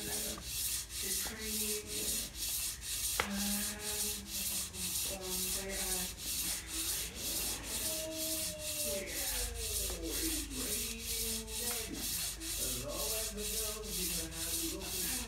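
Abrasive wet and dry paper wrapped around a crankshaft journal, worked back and forth with a pull cord: an even, rhythmic rasping at about three strokes a second, with a squeaky note sliding up and down. The journal is being polished by hand to clean up the damage left by a failed big end shell bearing.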